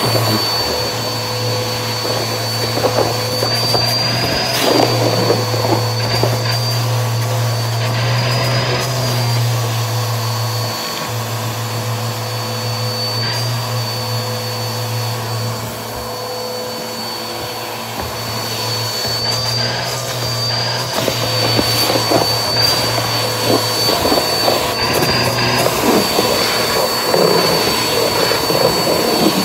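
Bissell vacuum running steadily with a thin high whine while its hose sucks small crunchy debris off a hardwood floor; the bits crackle and click through the hose, more often in the last third.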